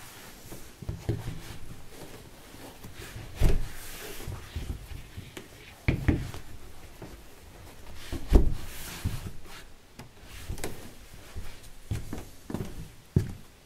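Irregular knocks and thumps of objects being handled in a small room, with lighter clicks and rubbing between them; the loudest thumps come about three and a half, six and eight and a half seconds in.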